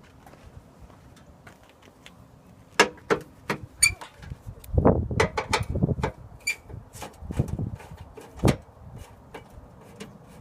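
A string of sharp plastic clicks and knocks, with a couple of heavier thuds, as the front bumper cover's push-in clips and hooks are worked loose. It starts about three seconds in and stops shortly before the end.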